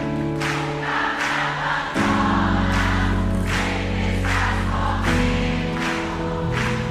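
Worship music: a choir of voices singing sustained notes over a band with a steady beat, the chords changing about two seconds and again about five seconds in.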